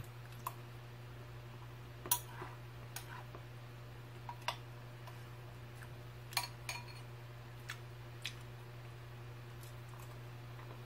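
Metal spoon clinking against a ceramic bowl while eating Jolly Pong puffed-wheat cereal with milk: about ten small, irregular clicks and taps over a low steady hum.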